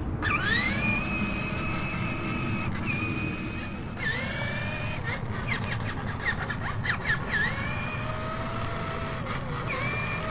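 High-pitched whine of a small battery-powered toy vehicle's electric motor. It rises in pitch as the motor spins up, holds steady, dips and spins up again several times, with a cluster of quick clicks and chirps in the middle.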